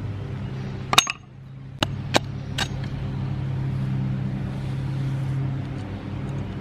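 Four sharp knocks of a metal axe head striking and prying into a beetle-infested log, bunched between about one and nearly three seconds in. Under them runs a steady low motor hum.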